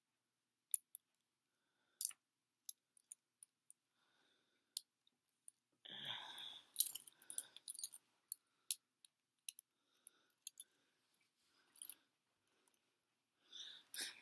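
Scattered sharp metal clicks from a pair of Smith & Wesson Model 100 handcuffs being handled and worked, with a brief rustle of handling about six seconds in.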